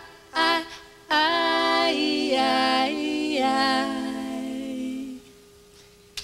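Female lead and backing voices singing in close harmony with little or no instrumental backing. A short phrase is followed by a long held chord that shifts twice and fades out about five seconds in, ending the song.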